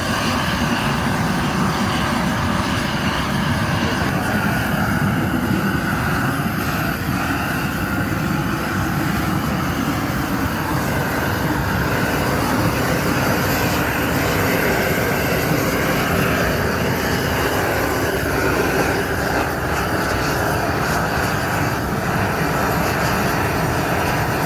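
Bottled-gas flame torch burning with a loud, steady rushing noise as it singes the bristles off a slaughtered pig's carcass.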